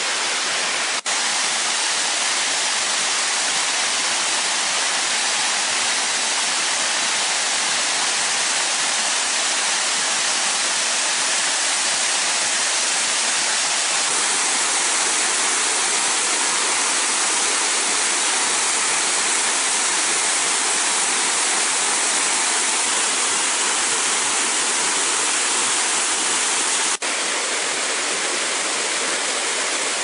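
Water of a mountain stream pouring and splashing over limestone cascade steps: a steady rushing noise, briefly cut out about a second in and again near the end.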